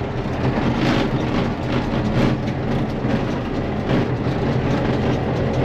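Tractor engine running steadily under load while a round baler presses grass silage bales, with irregular knocking and clatter throughout.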